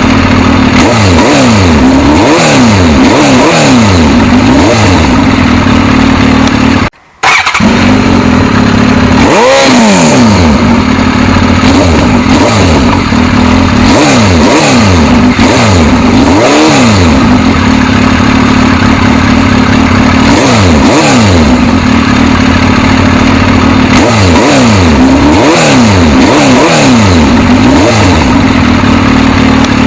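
Suzuki GSX-S1000's inline-four engine being revved over and over, each throttle blip rising and falling in pitch above a steady engine note, with a brief cut in the sound about seven seconds in.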